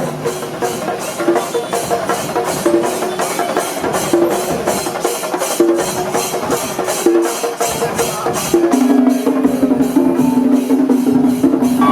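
Kerala temple-festival percussion music: drums and a steady clash of hand cymbals about three times a second, with held wind-instrument notes growing stronger near the end.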